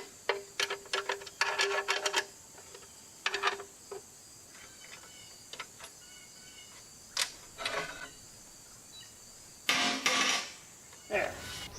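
Metal clinking and clattering of tools and hardware as a steel sawmill track section is taken apart. It comes in quick runs of clicks and knocks, some with a short ringing note, then scattered light ticks, and a longer noisy burst about ten seconds in.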